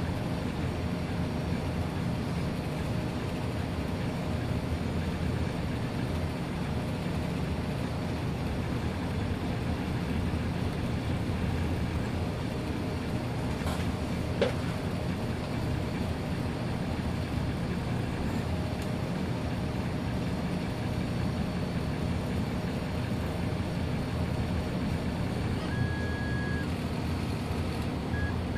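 Ord-Bot 3D printer printing: its stepper motors buzz and whine in shifting tones as the head and bed move, over the steady noise of its cooling fans. There is a single sharp click about halfway through, and short high whines near the end.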